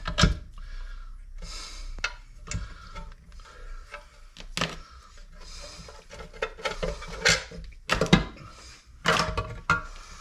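Irregular metallic clicks, knocks and scraping as the steel reservoir of a power steering pump is worked loose and pulled off the pump body on a workbench. The knocks are loudest at the start and again around eight seconds in.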